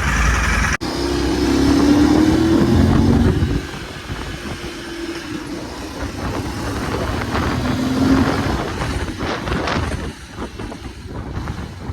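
Motor vehicle engine sounds, louder for the first few seconds after a brief break, then quieter for the rest.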